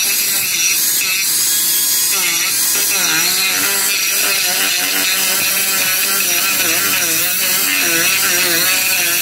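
Dremel 4000 rotary tool running with its bit pressed into dry bonsai deadwood, grinding off dead bark and texturing the wood. Its whine keeps dipping and rising in pitch as the bit bites into the wood and eases off.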